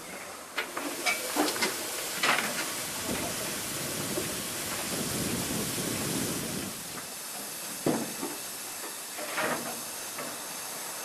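Narrow-gauge Double Fairlie steam locomotive hissing as steam escapes low around its wheels while it moves slowly. The hiss is steady, strongest in the middle. There are several sharp clanks in the first two seconds and single knocks near the end.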